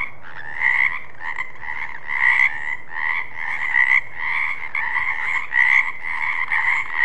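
A chorus of frogs croaking steadily, a dense layered calling with louder pulses about twice a second.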